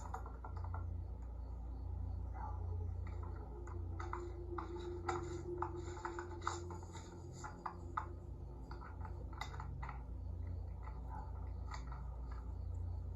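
Irregular small clicks and scratching, like handling noise, over a steady low hum.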